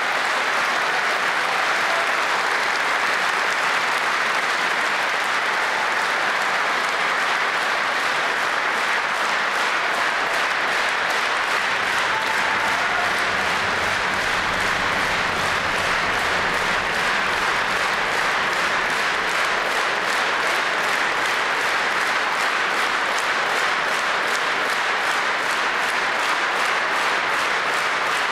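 A large audience applauding, loud and steady, sustained without a break.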